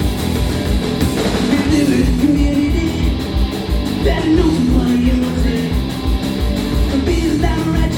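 Punk rock band playing live, with distorted electric guitar, bass and a driving drum beat, and a singer's voice in places.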